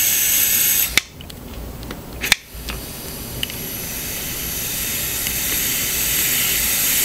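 Wall suction vacuum regulator hissing as air is drawn through it. The hiss cuts back with a click about a second in, there is another click a little later, and then it builds steadily over the last few seconds as the regulator knob is turned up and the vacuum climbs.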